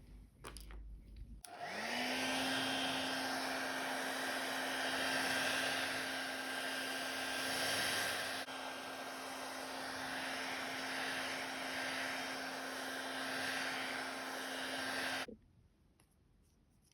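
Electric hot-air blower switched on about a second and a half in: its motor hum rises quickly to a steady pitch over a rush of air, runs steadily, then cuts off abruptly near the end.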